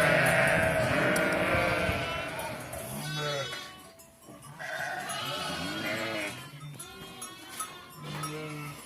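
A flock of sheep bleating, many calls overlapping. The calls are dense and loud at first, then come as scattered, quieter calls.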